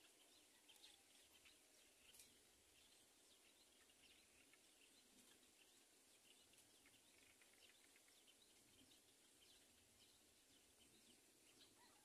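Near silence: faint outdoor ambience with many tiny, scattered high-pitched ticks.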